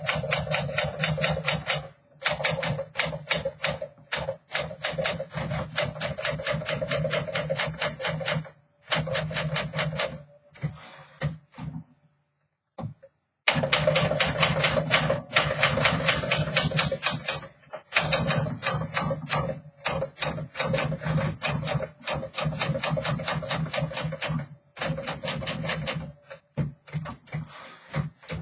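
Fast typing on a 1963 Smith Corona Sterling manual portable typewriter: rapid runs of sharp type-bar strikes against the platen, several a second. The typing is broken by a few short pauses and one longer break about twelve seconds in.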